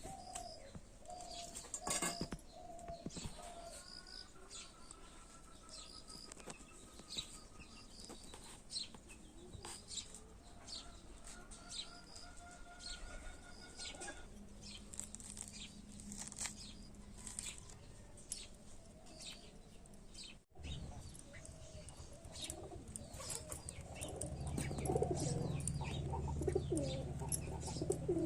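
Birds chirping and calling, many short high chirps with a few longer held notes. A louder low noise joins over the last few seconds.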